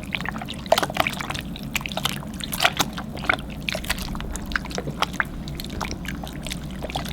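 Glue slime being stirred and squished in a bowl as activator is worked in: irregular wet, sticky clicks and squelches.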